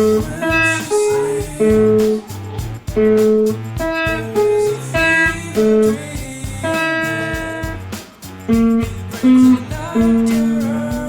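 Guitar music: plucked single notes and chords in a steady rhythm, over a low accompaniment.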